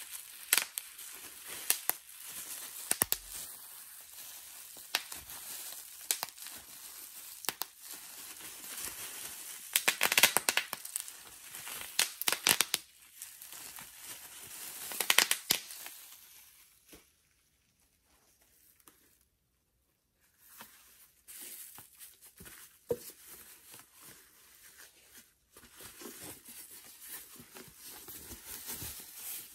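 Bubble wrap and a thin plastic sheet crinkling and crackling as gloved hands pull them off a wall clock and crumple them, with louder bursts about ten and fifteen seconds in. Near the middle it goes almost quiet for a few seconds before softer rustling resumes.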